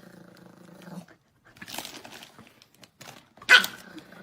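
A dog barking: one short, loud bark about three and a half seconds in, with softer low dog noises before it.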